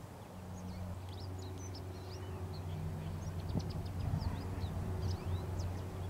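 Many small birds chirping, with short, quick chirps scattered throughout, over a steady low hum.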